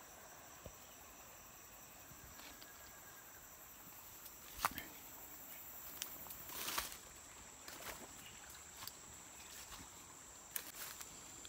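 Insects, crickets among them, keeping up a steady high-pitched drone. A few short snaps and rustles of footsteps through undergrowth break in, the loudest about halfway through.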